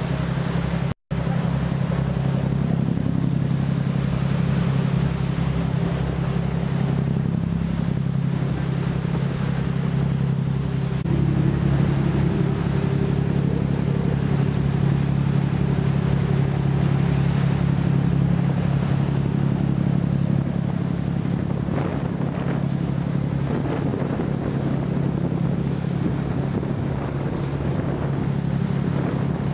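Steady low drone of a boat's engine under way, with wind buffeting the microphone and water rushing. The sound cuts out for an instant about a second in, and the engine note gets slightly louder about a third of the way through.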